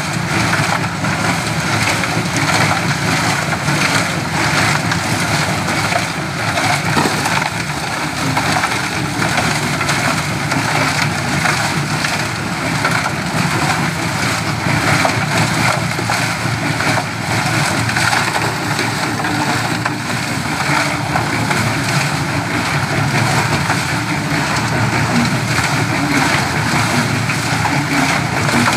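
Portable concrete mixer running steadily: its small engine turns the drum as it churns wet concrete.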